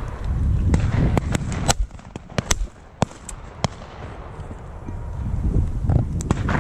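Shotgun shots during a pheasant hunt: about a dozen sharp reports at irregular intervals, most in the first four seconds and a couple more near the end, over low wind rumble on the microphone.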